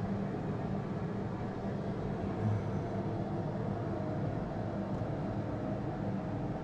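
Steady low rumbling background noise, even throughout with no distinct events.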